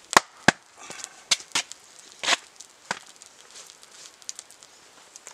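Wood burning in an open fire pit, popping and cracking: about half a dozen sharp cracks in the first three seconds, with fainter crackling between.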